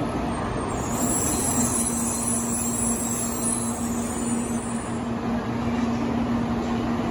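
N700-series Shinkansen train rolling slowly into the platform and coming to a stop, with a steady hum. A high squeal from the train joins about a second in and stops about five seconds in.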